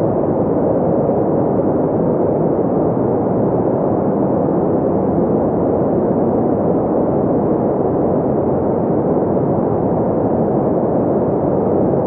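Muffled underwater ambience: a steady, dull rush of noise with no high tones.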